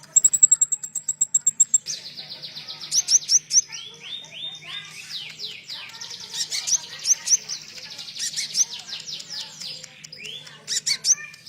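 Konin songbird singing a song filled with cililin phrases. It opens with a fast, even run of high, thin notes for nearly two seconds, then breaks into dense, rapid trills of sweeping notes.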